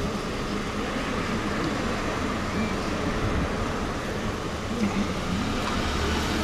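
Steady vehicle and traffic noise from the fuel station forecourt, with a low engine hum coming in near the end.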